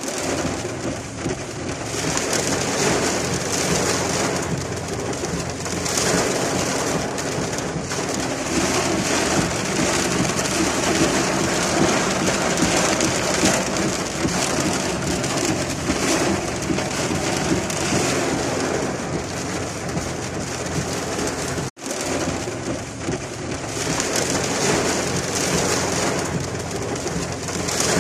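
Rain falling steadily, an even hiss of rain on surfaces, cut off for an instant a little over twenty seconds in.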